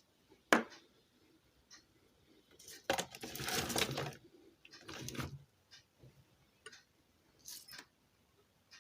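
Hand work on a ceiling fan's stator winding while a jumper wire is fitted: a sharp click, then about a second and a half of scraping and rustling, a shorter scrape, and scattered small clicks.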